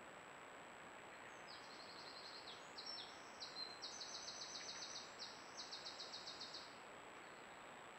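A small songbird singing several fast trills of rapidly repeated high notes, from about a second and a half in until a second or so before the end, over a steady hiss with a faint constant high whine.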